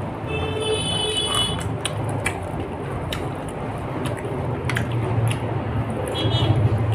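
Biting and chewing on a fried chicken leg piece eaten by hand, with small wet clicks and smacks over a steady low hum.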